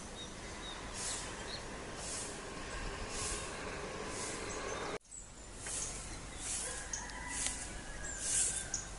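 Birds chirping and calling in a morning outdoor ambience, short chirps and longer whistles over a raspy high call that repeats about once a second. The sound drops out abruptly for a moment about five seconds in, then resumes.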